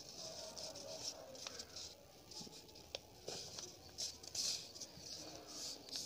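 Sheet of coloured paper rustling softly in scattered short bursts, with a few light clicks, as it is folded and creased by hand.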